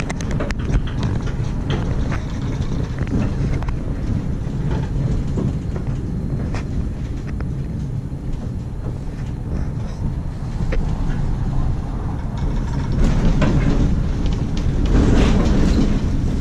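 Bombardier Variotram low-floor tram running, heard from inside the passenger car: a steady rail rumble with scattered clicks, growing louder near the end.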